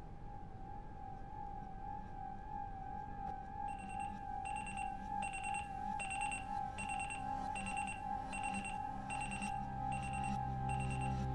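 Alarm clock beeping: a bit more than one high beep a second, starting about four seconds in, over a held, wavering tone. Low music swells in underneath near the end.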